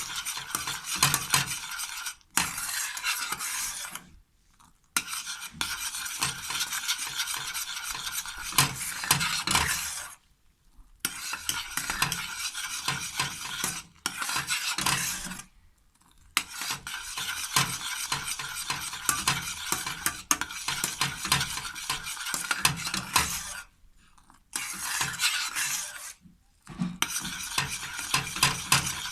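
A spoon stirring caramel in a pan on the heat, scraping and clicking against the pan over a steady hiss from the cooking sugar. The sound breaks off briefly several times.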